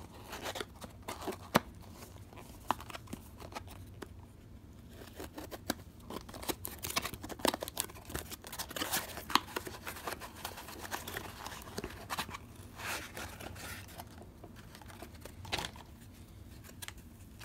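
Packaging crinkling and tearing as a new fuel gauge is unwrapped, with irregular sharp clicks and rustles of the wrapping being handled.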